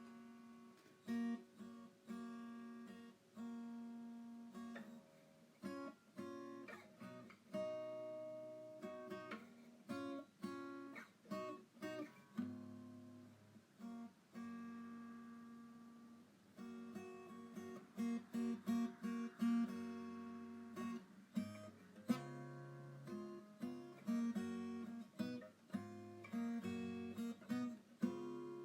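Background music of acoustic guitar, plucked and strummed.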